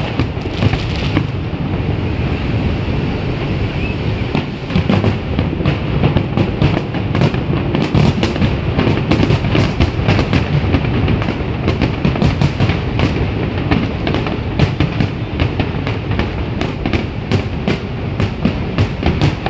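Large aerial fireworks display, shells bursting in a rapid, near-continuous barrage of cracks and booms over a deep rolling rumble.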